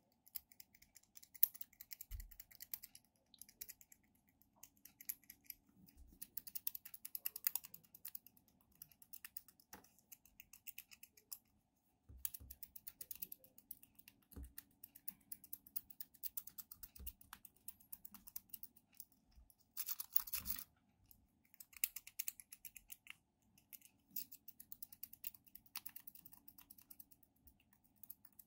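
Honest Locksmith Tools dimple rake scraping in and out of the keyway of a brass Fanal AS-50 dimple padlock: rapid fine metallic clicking and rattling as the rake passes over the pins, in spurts with short pauses. A louder burst of scraping comes about twenty seconds in.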